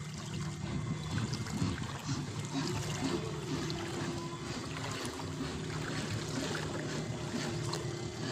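Small boat moving across the water: water splashing and trickling under a steady low hum.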